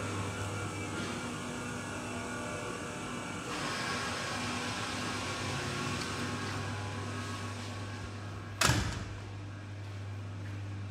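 Steady low mechanical hum with background noise. A single sharp knock sounds about nine seconds in.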